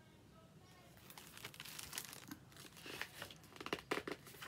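Paper pages of a picture book rustling and crinkling as they are turned. The rustles start about a second in and are loudest near the end.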